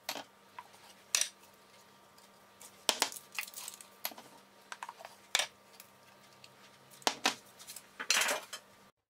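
Scattered light clicks and clinks of kitchenware as a wooden spatula lifts roasted peppers off a parchment-lined metal baking tray toward glass jars, with a longer scrape about eight seconds in.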